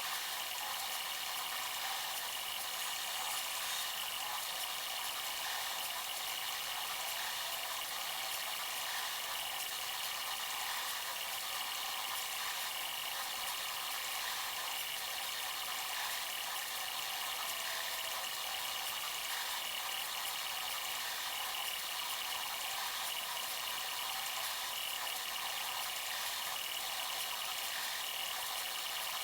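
Bambu Lab A1 3D printer running mid-print: a steady hiss of fans and motors with faint, even whines, unbroken throughout.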